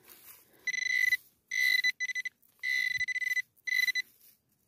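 Metal detector sounding a high, steady target tone in five short bursts, each a fraction of a second long, as the coil is swept back and forth over buried metal: the signal of a target in the ground.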